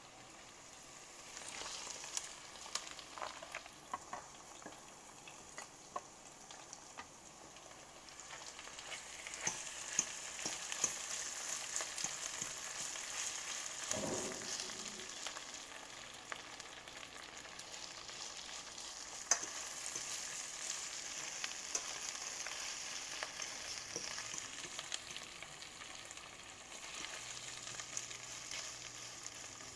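Lion's mane mushroom crumble sizzling in a stainless steel skillet with onions and peppers as it is broken up and stirred, the metal utensil clicking and scraping against the pan. The sizzle grows louder part way through.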